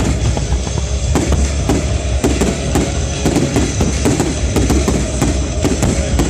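Fireworks display: a rapid, irregular string of bangs and crackles over a continuous low rumble.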